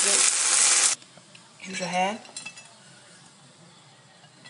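Bean sprouts, green onions and garlic sizzling in a saucy frying pan while being stirred with a metal spatula, cut off abruptly about a second in. A short wavering pitched sound follows near two seconds in.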